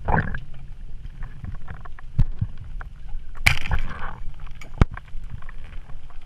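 Water sloshing and splashing around the camera, a steady low rumble with scattered knocks and clicks. There is a louder splash right at the start and another about three and a half seconds in.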